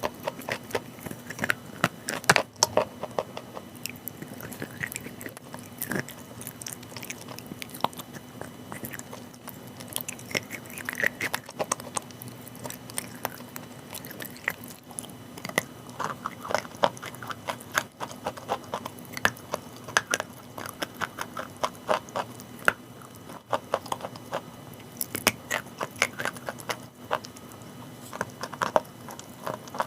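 Chalk being bitten and chewed close to the microphone: crunchy bites and crackling chews come one after another.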